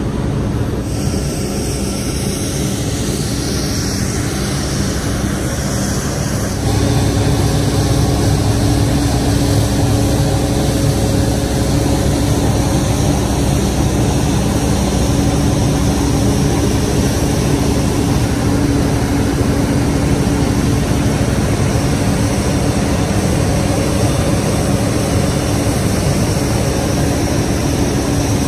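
Steady outdoor airport-apron noise: a continuous mechanical drone with a steady low hum from aircraft ground equipment. It grows louder about seven seconds in.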